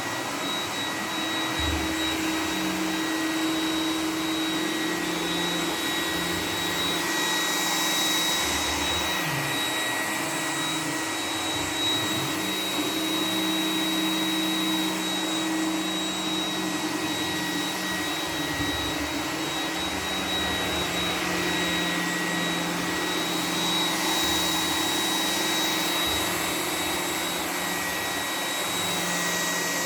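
iRobot Roomba 980 robot vacuum running in boost mode: a steady fan whine with a high tone over it, and a few brief low knocks scattered throughout.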